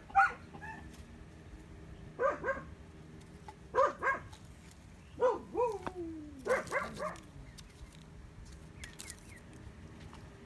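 A dog barking in short groups of two or three barks, five times over, with one bark about halfway through drawn out into a long whine falling in pitch.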